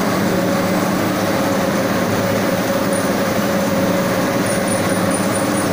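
Fabric-dyeing jigger machine running: a steady mechanical drone with a continuous hum as the cloth winds from roller to roller through the dye bath.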